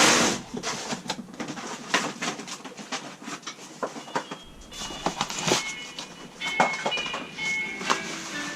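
Protective paper and padding being pulled and torn off a new bicycle frame: irregular rustling and crinkling with scattered sharp clicks and knocks.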